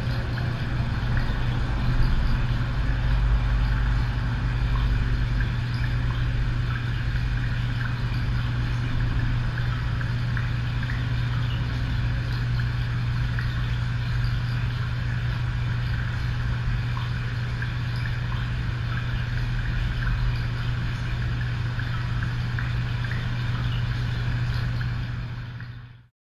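A steady low hum of machinery or electrical noise, unchanging throughout, that cuts off abruptly near the end.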